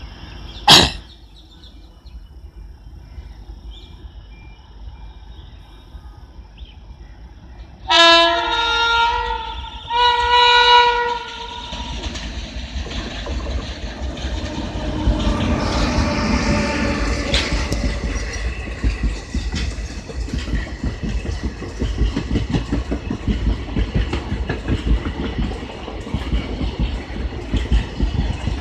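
WAP-5 electric locomotive sounding its horn in two blasts, about eight and ten seconds in, as it approaches. Then the locomotive and its passenger coaches pass on the next track with a steady rumble of wheels and rail clatter. A sharp click about a second in.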